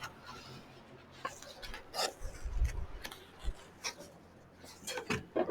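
Light handling noise: scattered soft clicks and rustles of objects being moved, with a low thump about two and a half seconds in.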